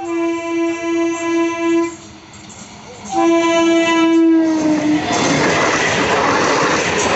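EMU local train horn sounding twice: a wavering blast of about two seconds, then a second blast that drops slightly in pitch as it ends. From about five seconds in, the loud, steady rush and rumble of the train passing close by takes over.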